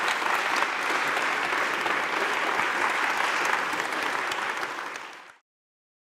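Audience applauding, a dense even clatter of many hands clapping that fades and cuts off about five seconds in.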